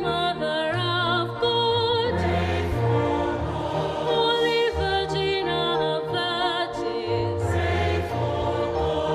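Choral music: voices singing long, slow notes with vibrato over sustained low notes.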